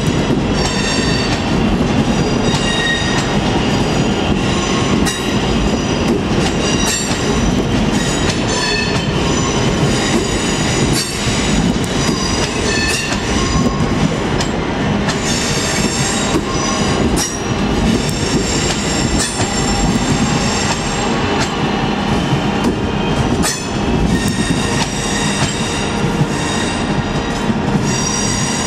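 Electric multiple-unit passenger trains running slowly over the station pointwork, the wheels squealing in shifting high tones on the curved track, with a steady rumble and scattered clicks from the rail joints.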